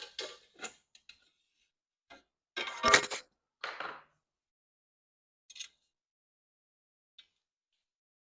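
Scattered metallic clinks and knocks of hand tools and bike parts being handled while an e-bike fender is unbolted, with one louder clatter about three seconds in.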